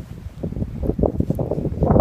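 Wind gusting across the microphone, an uneven low rumble that swells and drops, loudest near the end.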